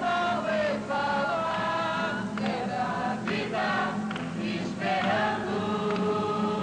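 A group of young voices singing a song together to acoustic guitars, with long held notes.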